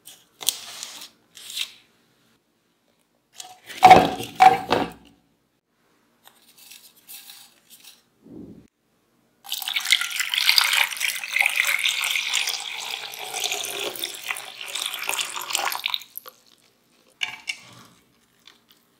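Water poured in a thin stream into a pot of small potatoes: a steady splashing that lasts about six seconds and then stops abruptly. Before it, a few loud knocks about four seconds in.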